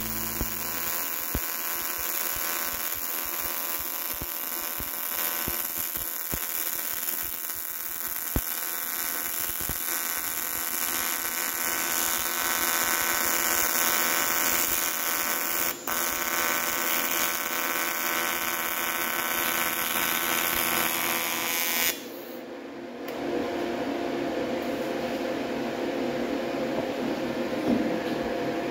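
Welding arc on aluminum, a steady buzzing hiss with a constant hum under it. About 22 seconds in it cuts off abruptly and gives way to a duller, lower steady noise.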